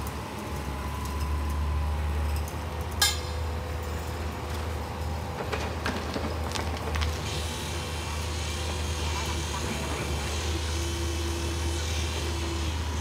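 Building-site sound: a steady low engine hum runs throughout, with a single sharp knock about three seconds in and a faint high whine joining from about halfway.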